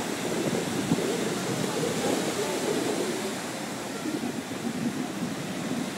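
Sea surf breaking and washing up the sand in a steady rushing noise.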